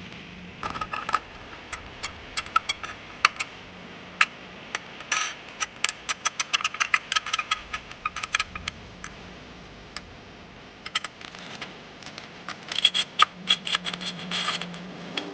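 Sharp metallic clicks and clinks in irregular runs: hand tools and lug nuts being worked during a car wheel change.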